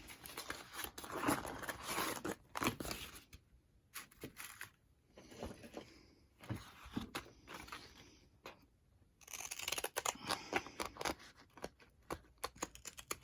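Paper and faux-leather craft pieces being handled and worked on a table: irregular rustling and small clicks, with two brief pauses.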